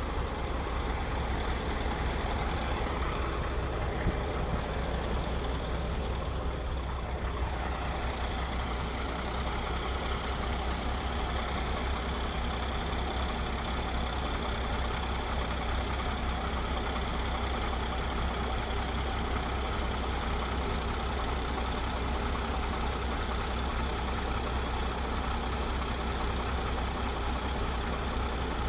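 Heavy logging truck's engine running with a steady low drone.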